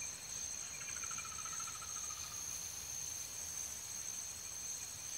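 Steady, high-pitched chirring of insects, made of several unbroken tones, one of them a fast, fine pulsing. About a second in, a fainter, lower trill falls slowly in pitch over about a second and a half.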